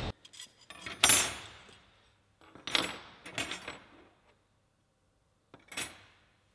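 Thin sheet-metal grill parts being set down and shifted on a wooden tabletop: a few short metallic clinks and taps, about a second in, twice around 3 s and once near 6 s.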